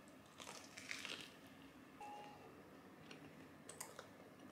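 Close chewing of a bite of chicken sandwich, with crisp crunches about half a second to a second in. A brief faint tone follows about two seconds in, and a few light clicks near the end as the sandwich is picked up from the plate.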